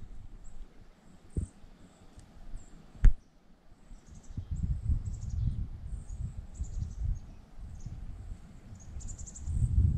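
Low, uneven rumble of wind on the microphone, swelling about halfway through and again near the end, with faint high-pitched insect chirps scattered throughout and a sharp click about three seconds in.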